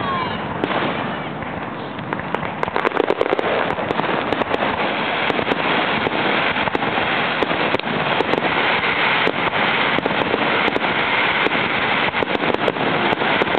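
Aerial fireworks crackling: from about two seconds in, a dense run of sharp pops and crackles in quick succession.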